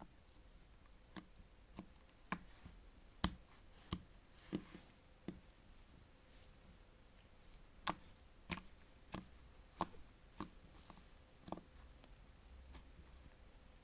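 Vaseline slime being pressed and worked by hand, giving a series of sharp clicks and pops from trapped air, irregularly spaced about half a second to a second apart.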